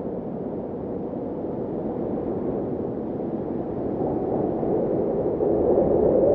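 Snowstorm wind blowing in a steady, low rush, growing louder over the last two seconds.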